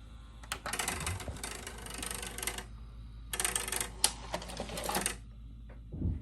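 VHS video recorder's tape mechanism clattering and whirring in two bursts of about two seconds each, with a low thump near the end. A steady mains hum sits underneath.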